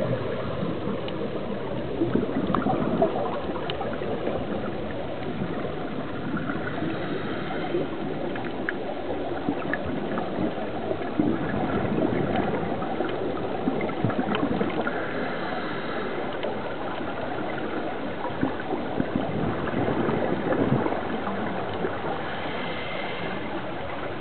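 Scuba divers' exhaled bubbles gurgling and rushing underwater, heard muffled through a waterproof camera housing, with a louder surge of bubbles about every seven or eight seconds.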